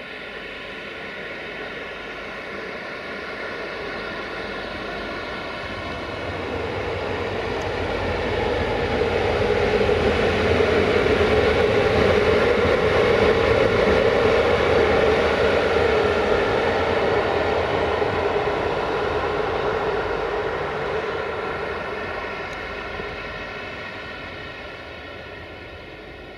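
Romanian LE 5100 kW (class 40, 060-EA) electric locomotive running light past, a steady droning hum of several tones over wheel and running noise. It grows louder to a peak around the middle and fades as the locomotive moves away.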